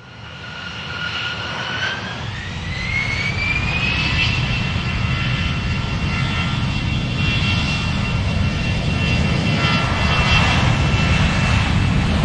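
Airplane engines running, growing louder over the first few seconds over a steady low rumble. A whine climbs in pitch about two seconds in, then holds steady.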